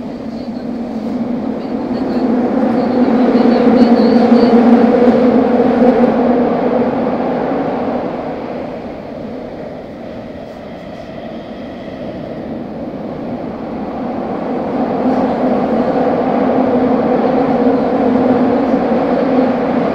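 A Tokyu 3000 series electric train running through a subway tunnel, heard from inside the car: a steady, loud rumble of wheels on rail. It swells, eases off about halfway through, then builds again.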